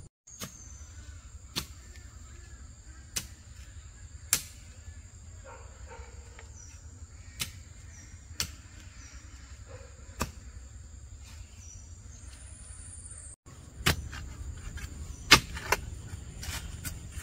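Insects keep up a steady high drone, broken by about a dozen sharp knocks at uneven intervals of one to three seconds.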